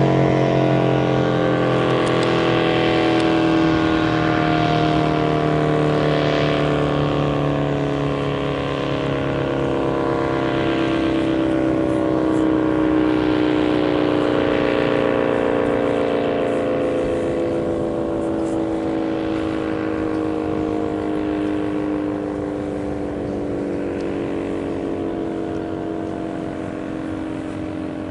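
ACA P-50 outdoor warning siren sounding the attack signal: a loud, continuous multi-note wail whose pitch slides slowly downward, swelling and easing slightly in loudness. The siren is one the uploader calls "a bit sick".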